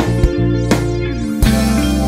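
Background music: a guitar-led track with a steady beat, changing chord about one and a half seconds in.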